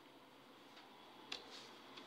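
Near silence: room tone, with one short click a little past the middle.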